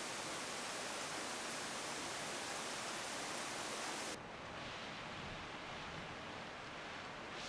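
Heavy rain downpour, a steady even hiss. About four seconds in it changes abruptly to a softer, duller rain sound without the high hiss.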